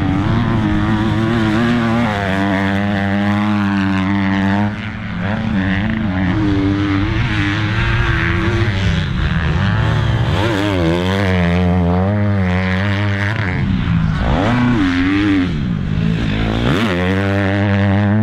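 KTM motocross bike's engine revving hard through corners and straights, its pitch rising and falling over and over as the rider opens and closes the throttle; it backs off briefly about five seconds in.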